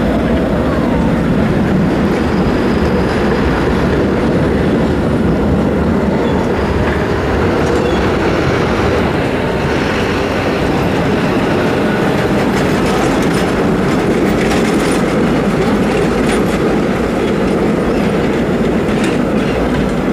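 Trams rolling through a street crossing close by, their steel wheels rumbling and clacking over the rail joints and switches, with a faint wheel squeal early on.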